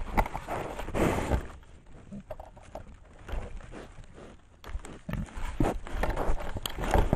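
Knocks and rustling from a large animal right against the trail camera, bumping and jostling it. The sounds come in clusters: a burst in the first second and a half, a quieter stretch, then more knocks from about five seconds in.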